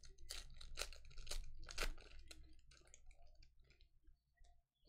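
Foil wrapper of a football trading-card pack being torn open and crinkled: a quick run of sharp crackles, loudest in the first two seconds, then fainter rustles.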